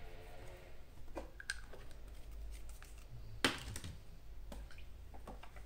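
Scattered light clicks and taps of painting tools being handled, with one sharper click about three and a half seconds in.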